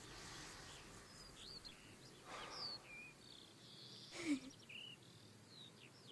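Faint birds chirping, scattered short chirps over a soft outdoor background, with a brief louder sound about four seconds in.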